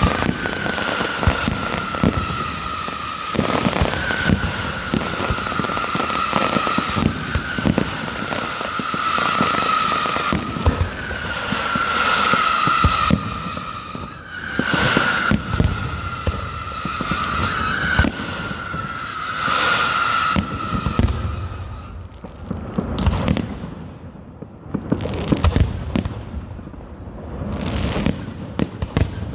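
Fireworks display: a dense run of bangs and crackling bursts, with a high whistling tone that sags slightly and restarts every couple of seconds through the first two-thirds, giving way to sharper separate bangs near the end.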